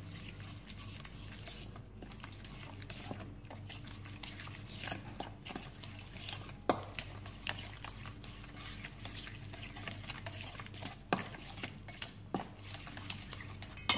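A metal spoon stirring and scraping a thick spice marinade around a stainless steel bowl, with a few sharper clinks of spoon on bowl. A steady low hum runs underneath.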